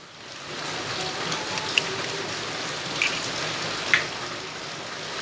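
Eggs cracked against a mixer-grinder jar: three sharp knocks about a second apart, over a steady rain-like hiss.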